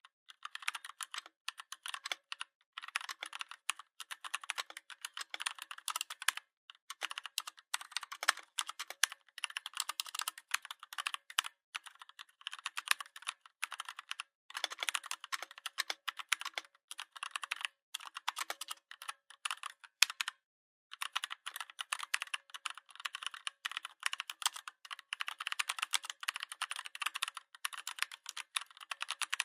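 Fast typing on a Redragon 61-key mechanical keyboard: rapid runs of key clicks, broken by short pauses every few seconds.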